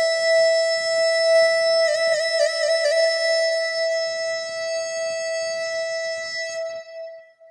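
Phu Thai pi, a free-reed pipe, holding one long reedy note, with a quick flutter of grace notes about two seconds in, then fading out near the end.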